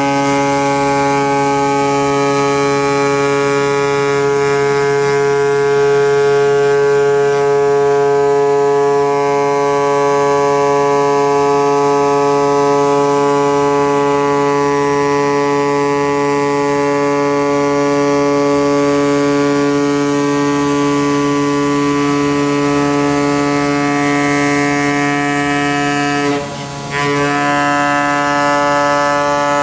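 CNC cutting machine working 3.5 mm asbestos sheet, running with a steady, even buzzing hum. The hum drops out briefly about 26 seconds in, then resumes.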